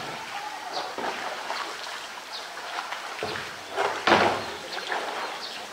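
A blue plastic drum being shoved about on concrete by a polar bear, with one louder knock about four seconds in, over faint trickling water and distant visitor chatter.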